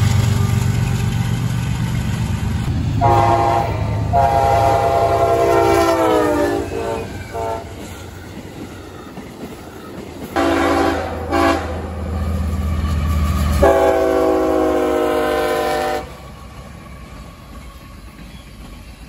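Diesel freight locomotive horns over the rumble of passing trains. A horn chord starts about three seconds in and drops in pitch as the train passes. Two short blasts come near the middle, then a longer blast that cuts off suddenly.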